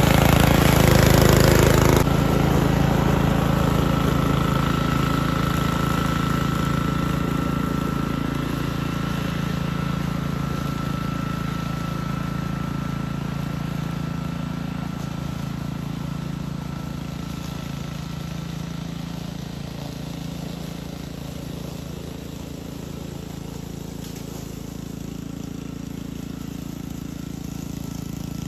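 Honda self-propelled walk-behind mower's small four-stroke engine running steadily while it cuts tall grass. It is close at first, then grows gradually fainter as the mower moves away.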